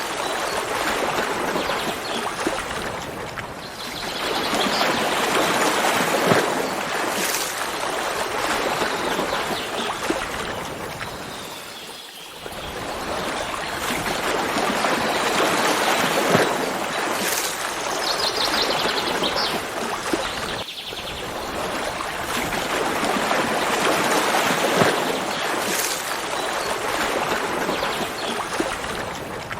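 Running water of a stream, a steady rushing that swells and ebbs in slow surges every several seconds.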